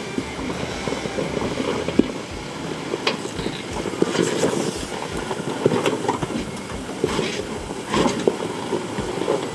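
Off-road 4x4 driving slowly over a rough trail: a steady rumble with irregular clunks and knocks, a few of them sharper.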